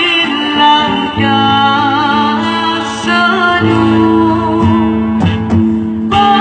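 A woman singing a melody with vibrato into a microphone, accompanied by a strummed acoustic guitar. The voice pauses for about a second near the end while the accompaniment carries on, then comes back.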